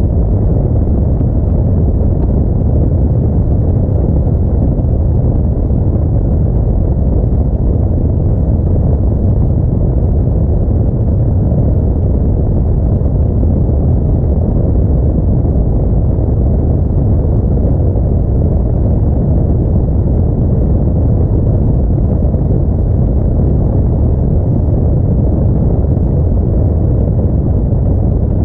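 Steady low rumble of a moving Audi A4, with road, tyre, engine and wind noise blended into one constant drone.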